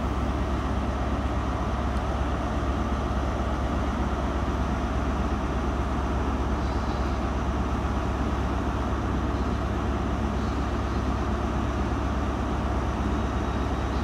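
Class 43 HST power car's diesel engine idling steadily with a low, even rumble while the train stands waiting to depart.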